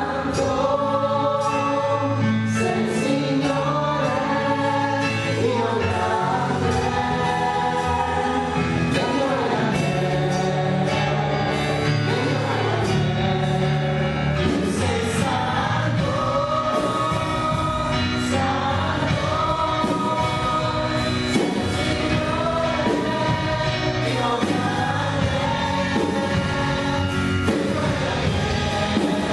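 Live Christian worship song: a group of voices singing together over keyboard accompaniment.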